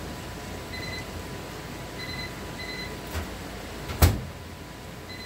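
A microwave's vent fan running steadily after switching itself on unbidden, while short electronic beeps sound three times in the first three seconds. A sharp knock about four seconds in is the loudest sound.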